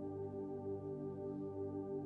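Soft ambient keyboard pad from a Yamaha MODX synthesizer: sustained chords held steady, gently swelling.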